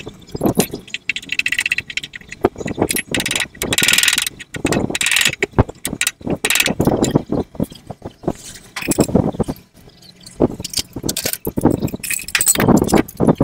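Metal tools and parts clinking and knocking as they are handled and set down, in irregular short clatters with some scraping between them.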